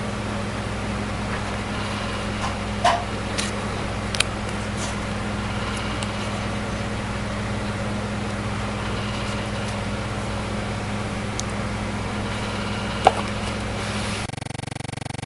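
A few light clicks and taps of a smartphone being handled, with a sharper click about 13 seconds in as it is laid into its plastic box tray, over a steady electrical hum. Near the end the hum stops abruptly.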